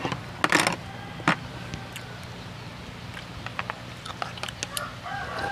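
Eating utensils clinking and tapping against ceramic bowls: a few sharp clicks about half a second and just over a second in, then lighter scattered taps, over a steady low hum.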